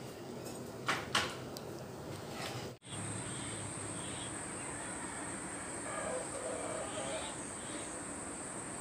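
A couple of metal clinks from a serving ladle against a steel vessel as curry is served. Then a steady, high-pitched insect drone with a few faint bird chirps.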